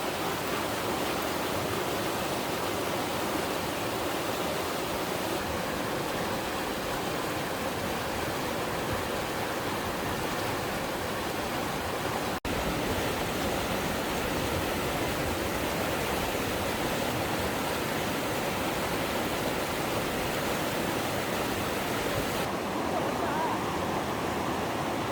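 Valley stream rushing steadily, an even wash of running water.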